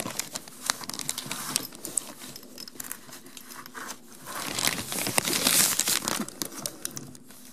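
Rustling and crinkling with scattered light clicks and taps: hands working a brass water-line fitting onto the dishwasher's plastic inlet, brushing against the material packed around it. The rustling swells about five seconds in.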